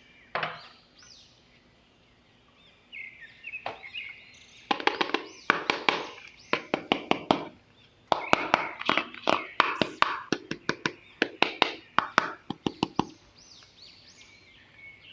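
A run of quick, sharp knocks and clicks, bunched between about four and thirteen seconds in, with small birds chirping repeatedly in the background.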